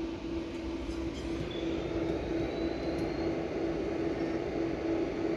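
Solar hybrid inverter running: steady cooling-fan noise with an electrical hum that pulses on and off.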